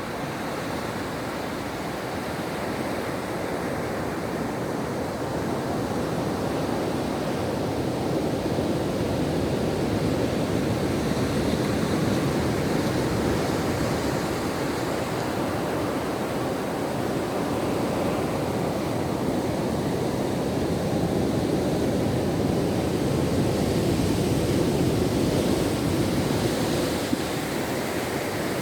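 Ocean surf washing onto a beach: a continuous rush of breaking waves that slowly swells and eases over many seconds.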